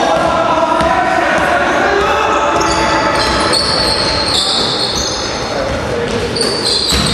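Basketball dribbled and passed on a sports hall floor during play, with short high sneaker squeaks and players calling out, echoing in the hall; a sharp knock near the end.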